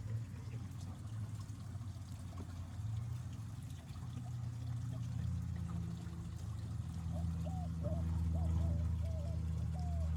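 Water trickling and pouring. A low, steady drone builds from about halfway through, and a run of short, high chirps comes near the end.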